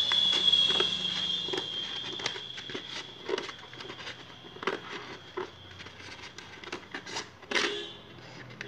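Large steel scissors snipping through a dried tissue-paper papier-mâché shell, a series of irregular crisp cuts. A steady high-pitched tone sounds in the background, loudest at the start and fading over the first few seconds.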